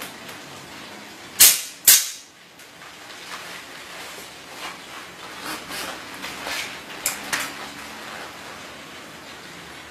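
C-type (C-ring) nail gun firing twice in quick succession, about half a second apart, each shot a sharp loud snap as it closes a ring through the cover. Fainter clicks and snaps follow a few seconds later.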